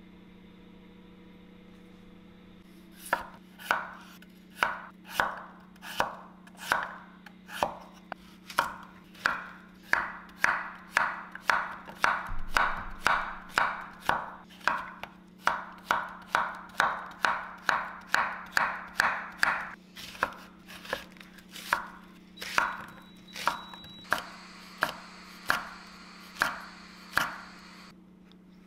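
Chef's knife chopping vegetables on a wooden cutting board, starting about three seconds in: a long run of sharp knocks on the board, a little under two a second, steady until near the end.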